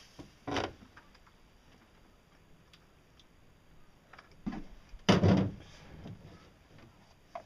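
Handling knocks while working on wiring under a solar panel frame: a clunk about half a second in, a louder clunk just after five seconds, and scattered small clicks between them.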